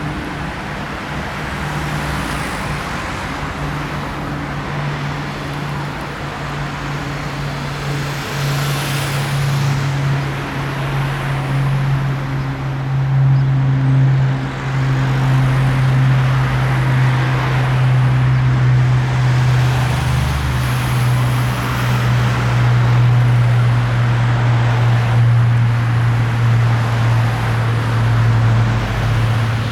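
Lockheed KC-130J Hercules' four Rolls-Royce AE 2100D3 turboprops with six-bladed propellers running with a steady low propeller drone. The drone sinks slightly in pitch and grows louder through the first half.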